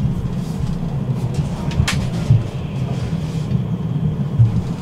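Tram running along its track, a steady low rumble, with one sharp click about two seconds in.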